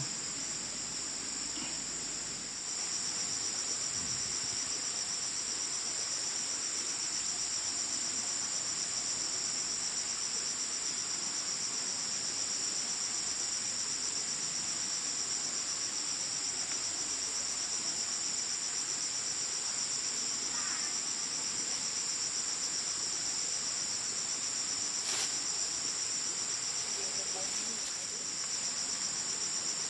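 A steady, high-pitched chorus of insects chirring without a break, with a single sharp click about 25 seconds in.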